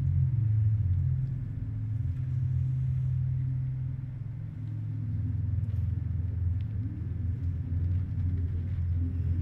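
A low, steady rumbling drone made of a few deep tones that hold for a second or two and then shift in pitch, from the stage's sound design.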